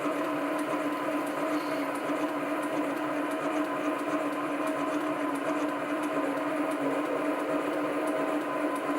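SC2 mini lathe running at a steady speed, its motor and gearing giving a constant whine.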